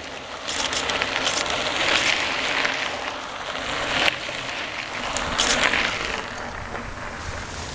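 Group of mountain bike racers and spectators shouting and cheering over a steady noisy background, with a sharp click about four seconds in.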